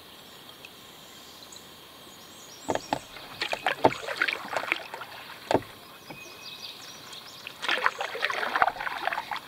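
Canoe paddle strokes in river water: irregular splashing and dripping from about three seconds in, with a few sharp knocks, and a longer splashy stroke near the end.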